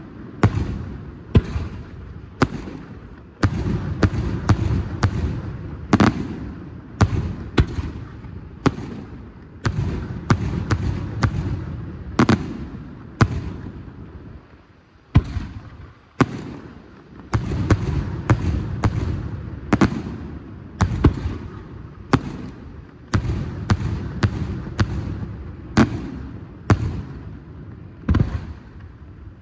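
Fireworks display: aerial shells bursting in quick succession, one or two sharp bangs a second over a continuous low rumble of booms and echoes, with a short lull about halfway through.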